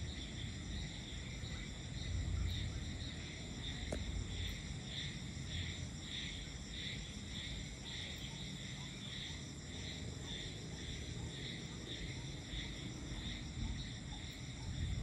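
A night insect chorus of crickets chirping in a steady pulse, about two pulses a second, over a continuous low rumble.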